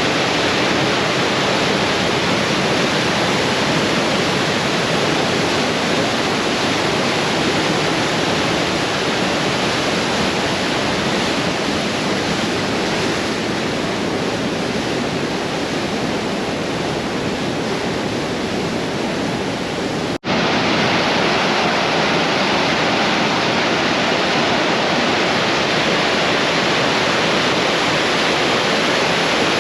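Waterfall rushing steadily as one loud, even wash of water noise. A split-second dropout about two-thirds of the way through marks a cut, and the rushing carries on after it.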